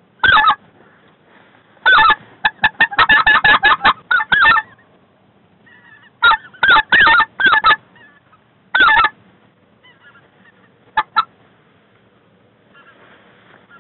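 Specklebelly (white-fronted goose) calling: loud, high yelping notes in bursts. A fast run of quick notes comes about two seconds in, followed by a few more short groups and two brief notes near the end.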